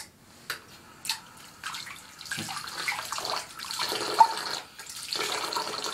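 Water running and splashing, after a few light knocks at the start.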